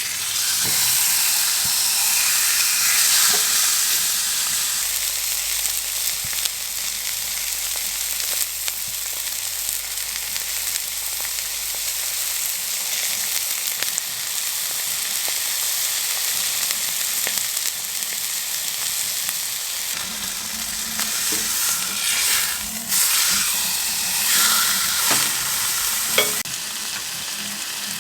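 Oiled sirloin steak sizzling in a hot pan, the sizzle starting suddenly as the meat goes in and carrying on steadily. A few knocks near the end.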